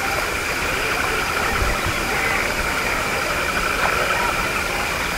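Steady night-time wetland ambience: an unbroken chorus of insects holding several constant high pitches.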